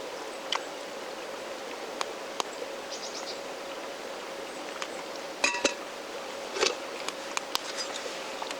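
Wood campfire crackling: a steady hiss broken by irregular sharp pops and snaps, with a couple of louder pops past the middle.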